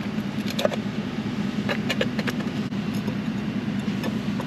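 An engine idling with a steady hum, with a few light clicks as chrome lug nut covers are pressed onto a truck wheel's lug nuts.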